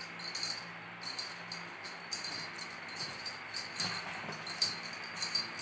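A small bell on a dangling string toy jingling in quick, irregular shakes as a kitten bats at it, over a faint steady low hum.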